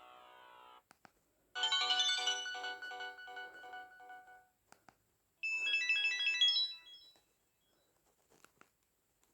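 Samsung GT-E1200 phone's built-in ringtones playing through its small loudspeaker: the end of one tune, then two short melodic ringtones, the second higher-pitched, each stopping after a few seconds. Faint clicks fall between and after them.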